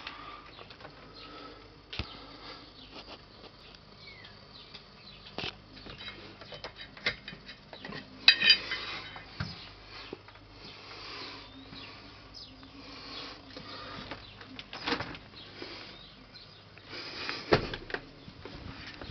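Scattered clicks, taps and rustling from handling, with a sharp cluster of clicks about eight seconds in and a few louder knocks near the end.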